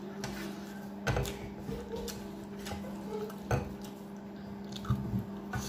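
Eating by hand from a stainless steel thali: fingers gathering food and knocking on the steel plate in a few sharp clicks, over a steady low hum.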